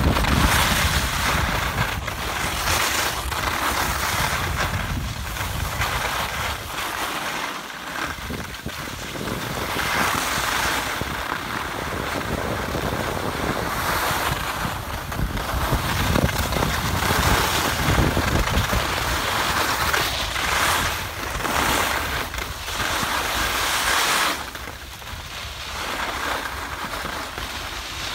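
Wind rushing over the microphone while skiing downhill, mixed with the hiss and scrape of skis sliding on groomed snow, swelling and fading in surges.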